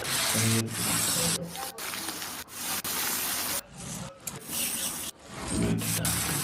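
Cooking sounds: a spatula stirring and scraping in a pan over a steady hiss, broken by several abrupt cuts.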